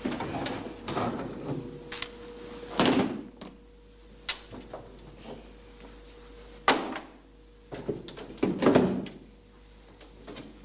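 Cases being shifted about in a car boot: a string of knocks and thumps from a briefcase and suitcases, the loudest about three seconds in, near seven seconds and around nine seconds.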